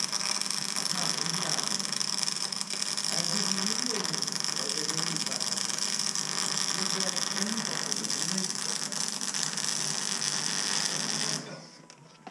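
Electric arc welding on steel: a steady, dense sputtering hiss while the arc burns, cutting off suddenly near the end when the arc is stopped.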